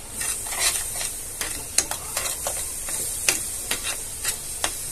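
Steel spoon stirring thick mango puree and powdered sugar in a nonstick pan on the flame, with irregular scrapes and taps of the spoon against the pan over a faint steady sizzle.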